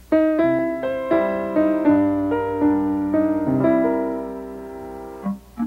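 Short title-card jingle played on a keyboard: a run of held notes changing about every half second that fades about five seconds in, then short separate notes begin near the end.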